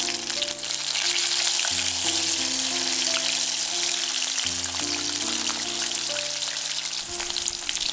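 Hot oil sizzling steadily in a cast-iron kadai as chicken pieces on potato slices deep-fry, with more pieces being slipped into the oil. Sustained background music notes play underneath.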